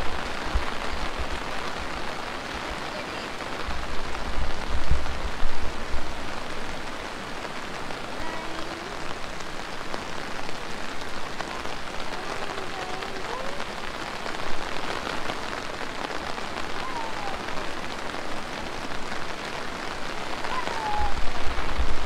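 Heavy rain falling steadily, a dense even hiss. Bursts of low rumble on the microphone come about four seconds in and again near the end.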